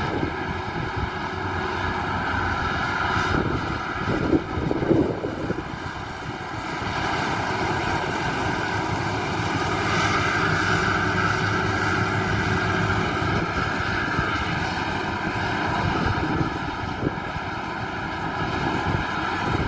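Maxxi Bimo 102 rice combine harvester running steadily at work in the paddy, an even engine and machinery drone. A brief louder irregular noise comes about four to five seconds in.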